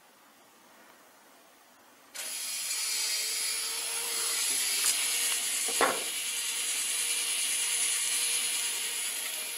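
Servo motor turning the bead-chain pulley of a venetian blind, a steady mechanical whirr and rattle of motor, chain and slats as the blinds are lowered. It starts suddenly about two seconds in, with a click about five seconds in.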